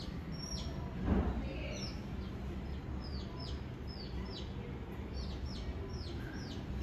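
A small bird chirping over and over: short, high chirps that fall in pitch, often in pairs, over a low steady hum. A brief thump about a second in.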